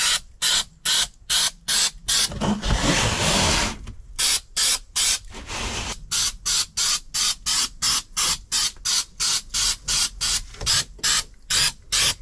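Aerosol can of 3M Super 77 spray adhesive hissing in short bursts, about two or three a second, with one longer spray of about a second and a half some two seconds in.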